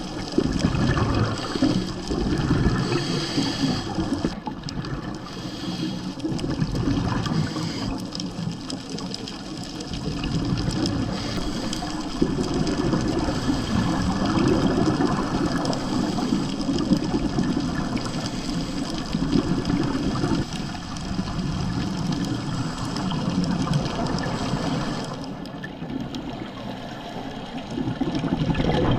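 Underwater bubbling and gurgling from a scuba diver's exhaled breath, rising and falling in surges several seconds long.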